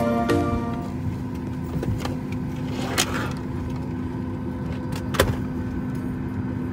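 Steady hum of an airliner cabin at the gate, with a couple of faint clicks. The last notes of background music fade out in the first second.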